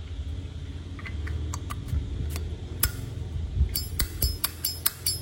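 Brass Zippo lighter being handled: sharp metal clinks and clicks, sparse at first, then coming quicker and louder over the last second and a half.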